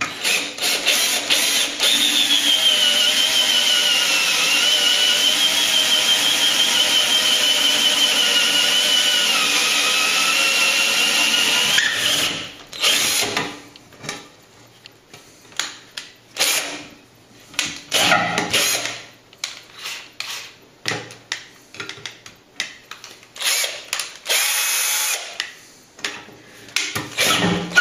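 Cordless drill with a spiral auger bit boring a hole through a plaster ceiling panel. It runs steadily for about twelve seconds with a wavering whine, then runs in many short bursts of the trigger as the bit works through.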